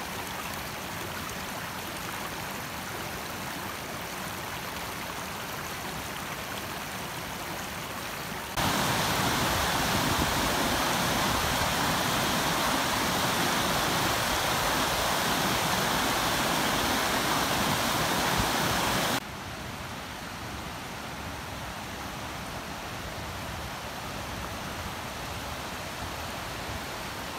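Steady rushing noise of flowing water, even and without distinct events. It jumps louder about a third of the way in and drops back abruptly about two-thirds of the way through.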